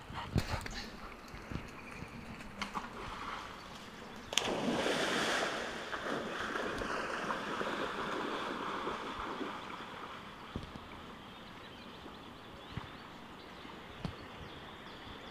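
Yellow Labrador retriever leaping into a creek about four seconds in, then several seconds of splashing water as it swims out, fading to a low steady water sound.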